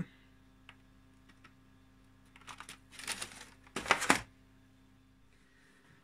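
Clear plastic clamshell food container being handled: a run of crinkling, clicking crackles about halfway through, then a louder sharp crackle a second later.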